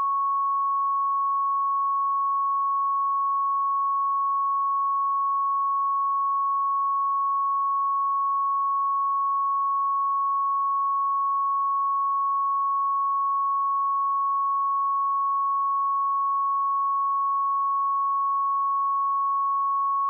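A steady, pure 1106 Hz sine-wave test tone, one unchanging pitch at constant level.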